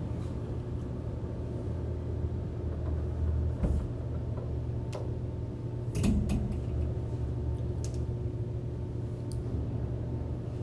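Steady low mechanical hum, like a building's ventilation, with a few light clicks and knocks about four, five and six seconds in.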